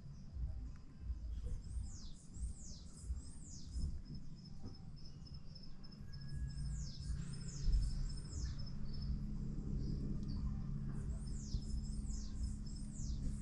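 A songbird repeats a phrase of three or four quick downslurred whistles, three times. From about halfway through, a bumblebee's low steady buzz joins in, with a thin, rapidly pulsing insect trill above it for a few seconds.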